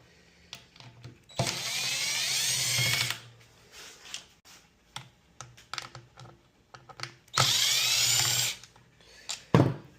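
Power drill-driver spinning fasteners out of a string trimmer in two runs, the first about a second and a half long and the second about a second, with small clicks of parts and tools between them and a sharp knock near the end.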